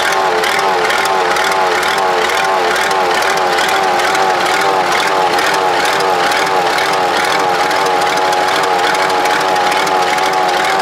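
Supercharged Cummins diesel engine in an old tractor running steadily, its note wavering slightly up and down.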